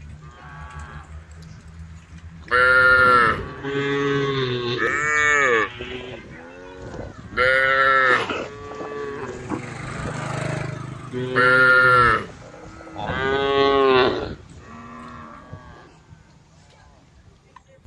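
Cows mooing: about six loud calls, each around a second long, with quieter moos between them.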